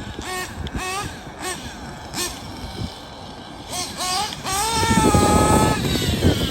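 Small nitro engine of a Kyosho Inferno NEO ST 3.0 RC truck revving in a series of short, rising throttle blips, then held at high revs for over a second. A rough rushing noise joins in about five seconds in.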